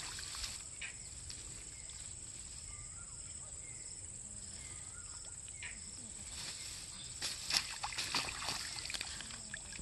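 Tall grass rustling and crackling as it is grabbed and handled at the water's edge, in several irregular bursts near the end, over a steady high hiss.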